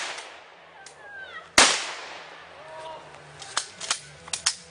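A single loud gunshot about a second and a half in, with a long echoing tail, followed by a few faint sharp clicks near the end.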